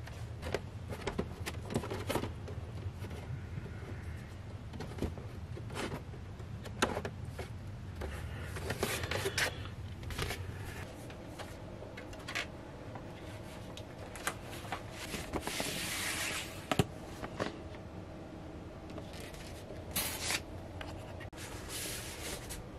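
Handling of a vinyl LP: the cardboard jacket and paper inner sleeve scraping, rubbing and rustling, with light knocks, as the record is taken down and its inner sleeve slid out. A longer paper rustle comes about sixteen seconds in, over a low steady hum.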